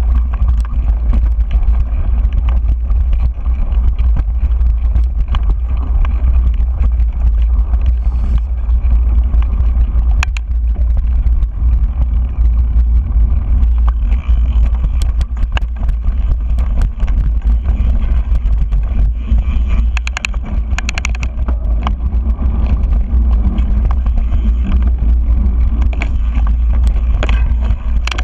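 Mountain bike rolling down a dirt singletrack, picked up by a GoPro's microphone: a loud steady low rumble with frequent sharp clicks and rattles as the bike bounces over rough ground.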